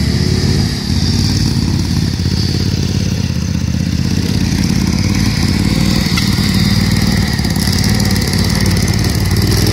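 Engines of racing ride-on lawn mowers running hard, a loud, steady engine drone.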